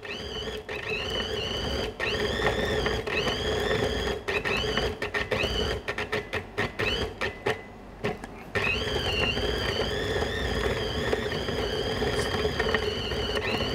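Small food processor's motor running, kneading pizza dough that has gathered into a ball and is being flung around the bowl. Its whine dips and recovers over and over under the load. In the middle it breaks into a rapid run of knocks and drop-outs with a short stop, then runs steadily again.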